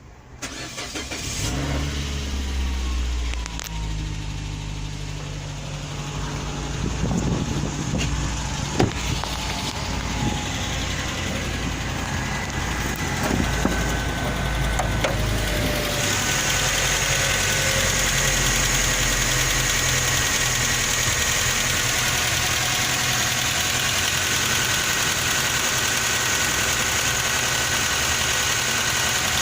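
Suzuki Grand Vitara's J20A 2.0-litre four-cylinder engine starting about a second in and then idling. Under it runs the knock that appeared after the timing chain was replaced, which the service calls normal and the owner doubts.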